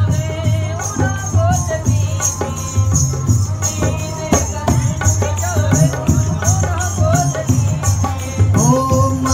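Live Rajasthani folk music. A hand drum beats a steady, dense rhythm with a rattling jingle, while a string instrument plays a wavering, ornamented melody over it.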